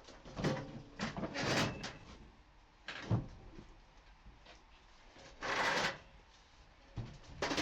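Hand plane taking short strokes across reclaimed pallet-wood boards, each stroke a brief rasping swish with knocks between, the strongest stroke a little past halfway through.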